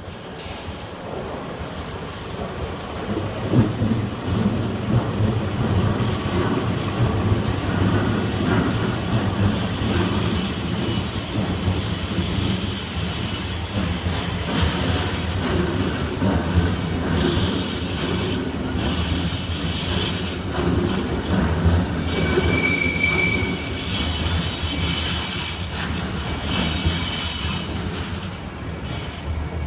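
Electric train passing a level crossing: a rumble of wheels on the track builds up, with high-pitched wheel squeal coming and going from about ten seconds in until near the end.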